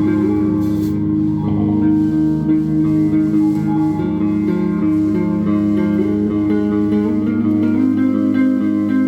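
A band playing with guitars over bass: held chords, with a wavering line standing out between about one and four seconds in.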